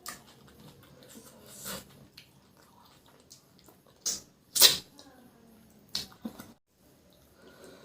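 Close-up wet eating sounds of a person eating chicken curry and rice: chewing and mouth smacks in a few separate bursts, the loudest about four and a half seconds in.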